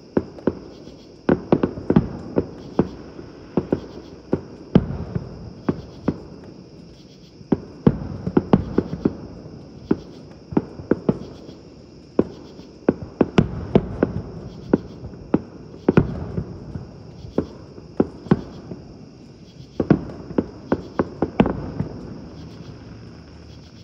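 Distant aerial fireworks bursting: many sharp bangs in quick succession, several a second at times, over a low rumble. Insects chirr steadily and high-pitched underneath.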